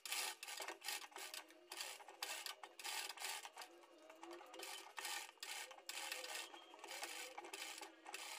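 Sewing machine stitching faintly in short, uneven runs of clatter with brief pauses, fabric rubbing as it is fed under the presser foot.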